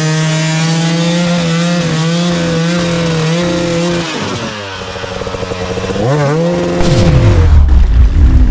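Enduro dirt bike engine held at high revs while the rear wheel spins in deep mud, the bike stuck in a mud hole. The revs ease off about four seconds in, climb again around six seconds, then fall away as a loud rushing noise takes over near the end.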